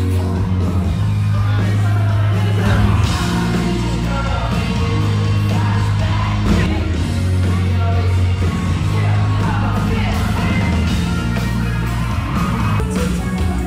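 Live pop-rock concert music: a singer over a band, with a strong low bass line that changes notes every few seconds.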